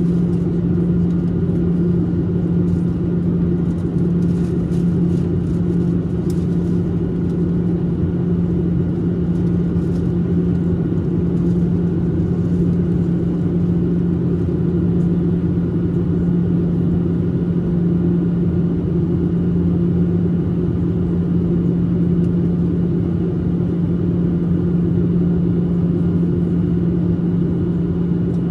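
Steady cabin drone of a Boeing 737-800 in cruise, heard from a window seat over the wing: its CFM56-7B turbofans and the airflow make an even rumble with a constant low hum. A few faint clicks sound around four to seven seconds in.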